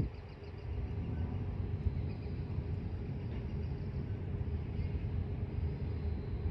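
Steady low vehicle rumble with no distinct strokes or rhythm.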